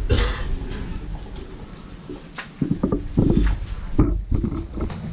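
Handling noise on the camera's microphone: scattered bumps and rubbing over a low rumble, loudest at the start and again around three and four seconds in.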